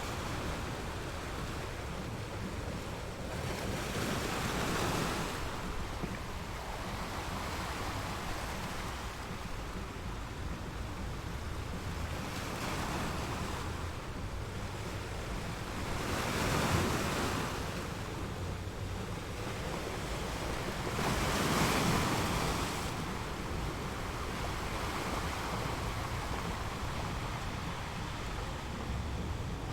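Sea waves breaking and washing ashore, swelling and fading in surges with four stronger washes, over a steady low wind rumble on the microphone.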